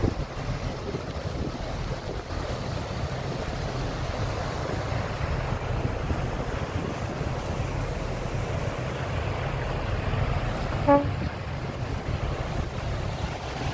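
Steady low rumble of a lake boat under way, with water rushing along the hull and wind buffeting the microphone. A short pitched toot cuts through once near the end.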